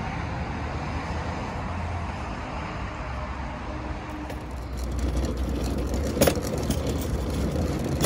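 Steady rumble of road traffic that swells a little after about four seconds, with one sharp knock about six seconds in.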